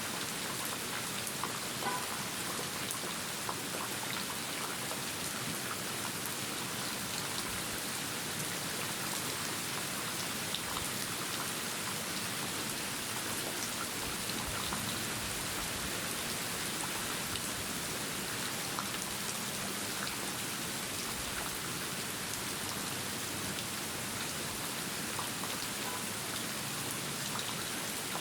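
Steady rain falling, with the ticks of individual drops scattered through an even hiss.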